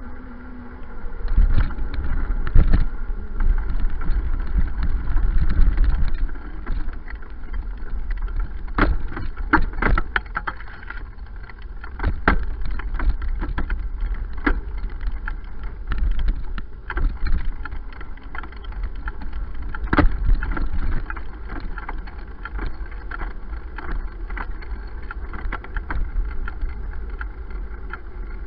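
Bicycle ride on a paved path with a low rumble of wind on the microphone and tyres on the tarmac, broken by frequent short rattles and knocks of the bike and its mount jolting over bumps.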